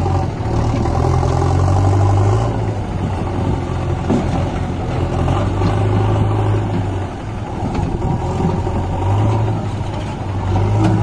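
JCB backhoe loader's diesel engine running, revving up and easing off every few seconds as it works its loader arm.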